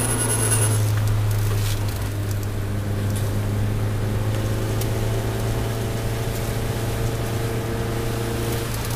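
Toyota Celica All-Trac's turbocharged four-cylinder engine running under load at a fairly steady pitch, heard from inside the cabin with tyre and wind noise.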